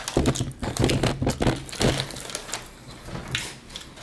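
Crispy battered crust of a fried chicken drumstick crackling as fingers squeeze and turn it close to the microphone: a dense run of small crunchy clicks over the first two seconds, thinning out after.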